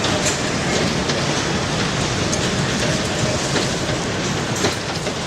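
Strong wind blowing hard, a steady rushing noise.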